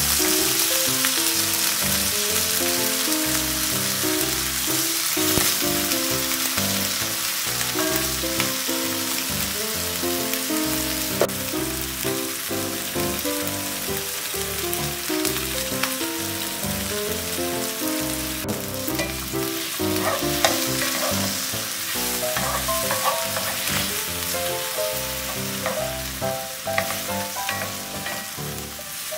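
Tomato wedges and spring onion sizzling in hot oil in a frying pan, with a few clicks of a wooden spatula as they are stirred. The sizzle dies down gradually. Light background music plays underneath.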